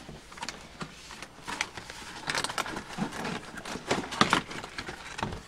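A boxed tap and die set being slid and lifted on a workbench: scattered rustling, scraping and light knocks of the packaging, busiest in the second half.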